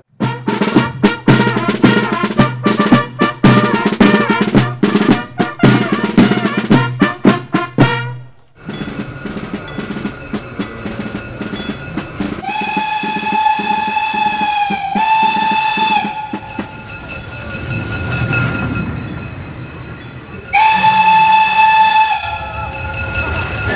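Steam locomotive whistle blowing three blasts over the running of a train: a long blast, a short one straight after, and a third a few seconds later. Before it, a few seconds of music with a strong beat.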